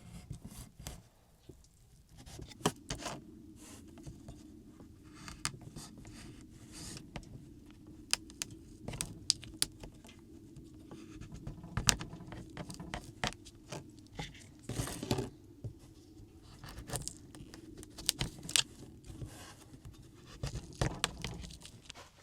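Irregular clicks, clatters and scrapes of objects being handled, over a steady low hum that starts a couple of seconds in and stops just before the end.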